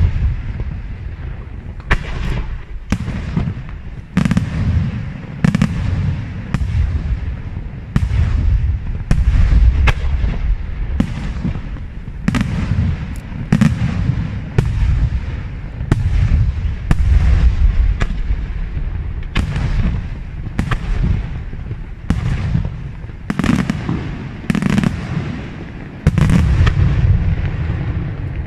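Aerial firework shells bursting in quick succession, roughly one to two sharp bangs a second, with a continuous low rumble between the reports.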